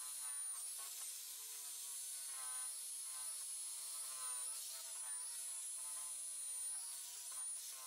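Electric drill spinning a foam buffing pad against car paint with rubbing compound, buffing out a scratch; a faint motor whine that wavers up and down in pitch as the load changes.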